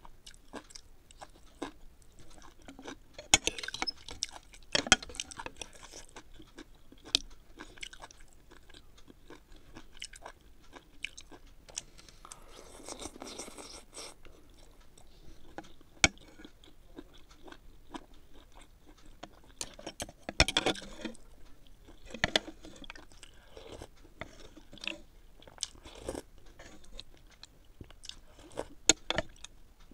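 Close-up eating sounds: chewing of chicken noodle soup with many sharp clicks and small mouth noises, and a longer noodle slurp about twelve seconds in.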